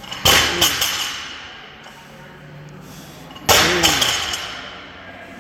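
A 185 lb steel barbell loaded with rubber bumper plates is set down hard on rubber gym flooring twice, about three seconds apart, between deadlift reps. Each landing is a heavy thud followed by a quick rattle of plates and collars, then a metallic ring from the bar that fades over about a second.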